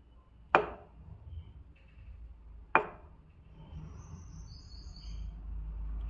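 Two sharp cracks about two seconds apart: the patient's spine popping as a chiropractor lifts and extends it in a seated thoracic adjustment.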